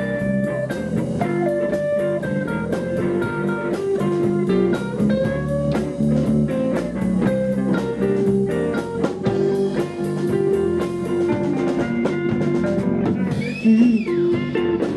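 Live blues band playing: electric guitar lines with bent notes over electric bass and a drum kit keeping a steady beat.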